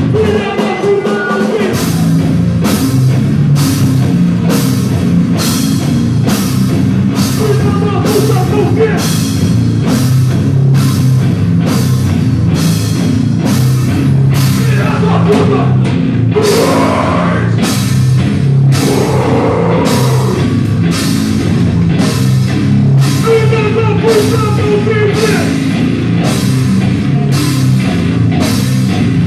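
Live rock band playing loudly: electric guitars and bass over a drum kit that hits about twice a second, with the vocalist's voice coming in at times.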